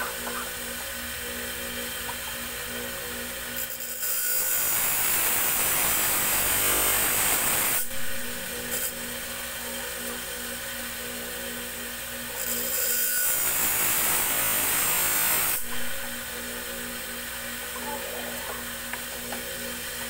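Steel blade for a cockfighting gaff being ground on a motor-driven grinding wheel. There are two long grinding passes of about three and a half seconds each, a few seconds in and again near the middle, with a steady machine hum between them.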